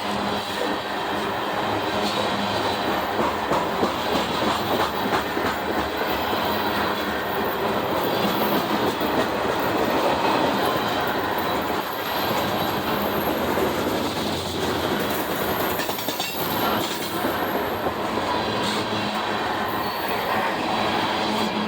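Freight cars of a CSX train rolling past close by: a steady rumble and rattle of steel wheels on rail, with a thin high wheel squeal for a few seconds past the middle.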